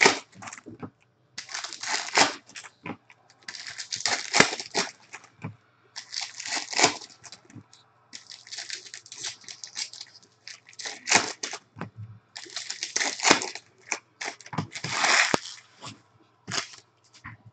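Plastic wrappers of baseball card packs crinkling and tearing open as they are handled, in a string of short bursts every second or two.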